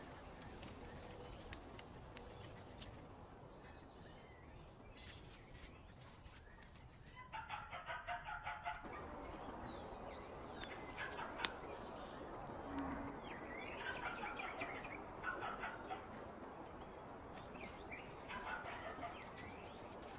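Bird calls: a quick rattling run of about a dozen pulsed notes lasting a second and a half, followed by several shorter calls, over a faint steady background hiss.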